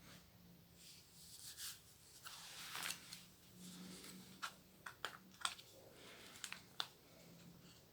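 Faint rustling of a paper book parcel being handled and opened, with a run of short sharp clicks about halfway through, such as scissors cutting the wrapping.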